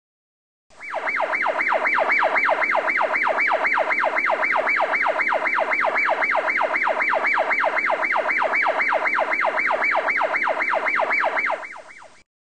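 Electronic siren in a fast yelp, its pitch rising and falling about three times a second. It starts suddenly near the beginning and cuts off just before the end.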